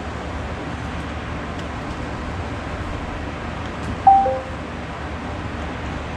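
A Chromebook gives a short two-note falling beep about four seconds in, over a steady hum and hiss. A few faint keyboard taps come before it.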